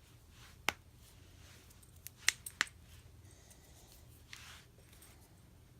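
Joints cracking: one sharp pop about a second in, then a quick run of four pops over about half a second around two seconds in. A short soft hiss follows a little later.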